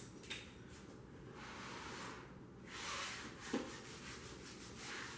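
Faint rubbing and brushing as a hand works over the carpet belt of a wooden dog carpet mill, in a few soft swells, with a light knock about three and a half seconds in.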